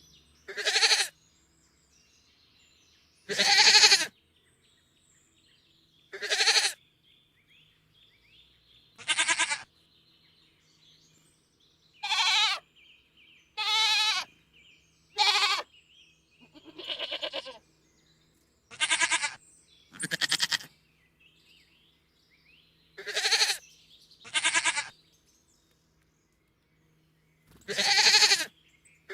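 Domestic goat bleating over and over: about thirteen separate bleats, each under a second long, with pauses of one to three seconds between them.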